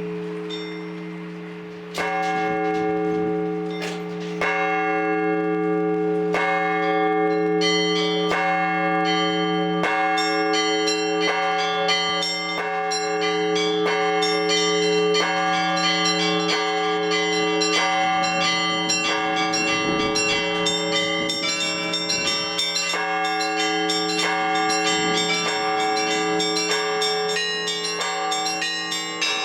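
Orthodox church bells being rung: the large bells hum on low, steady tones while smaller bells come in about two seconds in, struck ever faster into a dense, continuous peal.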